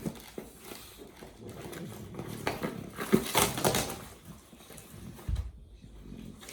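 A pet animal making short, irregular noises, loudest in a cluster around the middle.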